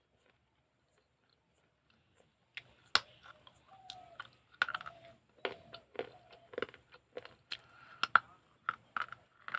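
Bite-by-bite crunching of a broken fired-clay pot shard (matki) between the teeth, starting about two and a half seconds in, with sharp crunches roughly twice a second and the loudest near the start of the run.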